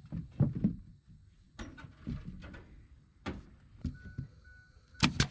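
Wooden trim boards knocked and pressed against the house wall: a series of thumps and knocks. Near the end come two sharp cracks in quick succession, the loudest sounds here, from a pneumatic nailer firing nails into the trim.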